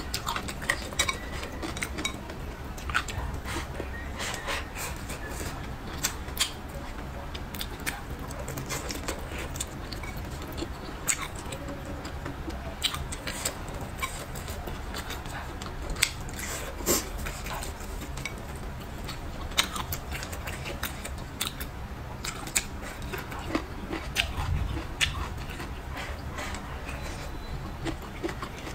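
Close-miked eating: wet chewing and mouth sounds of someone eating braised pork trotters and peppers, with irregular sharp clicks of wooden chopsticks against a ceramic bowl scattered throughout.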